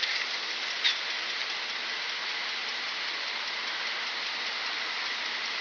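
A steady, even outdoor hiss with a small tick about a second in.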